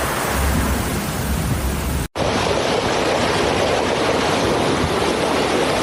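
Steady rushing noise of a heavy rainstorm, in two stretches: it cuts out for a split second about two seconds in, then resumes slightly louder and fuller.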